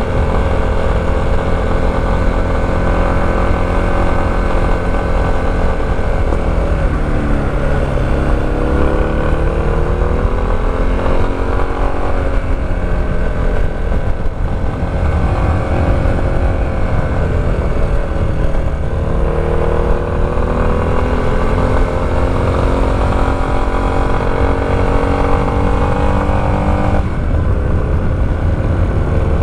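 Motorcycle engine running under way, its pitch falling and then climbing again twice as the revs change. Steady low wind rumble on the microphone underneath.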